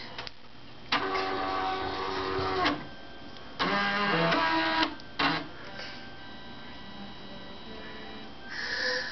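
Small electric motors of a homemade Arduino claw game, a stepper motor and a DC winch motor, running in three short bursts of a second or so each. Each burst is a steady pitched hum with several tones, over a faint constant hum.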